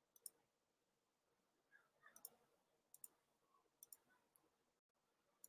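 Near silence, broken by a few faint, scattered clicks.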